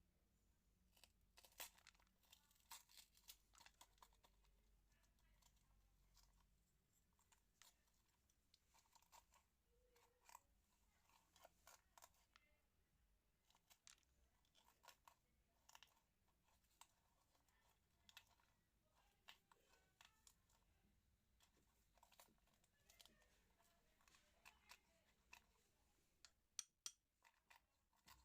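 Faint, irregular food-preparation handling sounds: scattered soft clicks, crackles and crunches of ingredients and utensils, with a few sharper clicks near the end.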